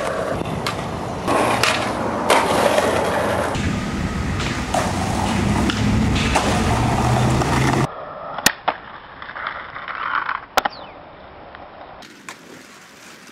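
Skateboard wheels rolling on rough concrete, loud for most of the first eight seconds, with sharp clacks of the board popping and landing. After that the rolling is quieter, with a few separate sharp clacks.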